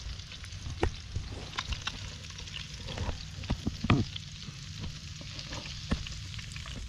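Pieces of fish frying in oil in a small pan, sizzling steadily, with scattered clicks and scrapes of a metal utensil turning them and lifting them out onto a cutting board.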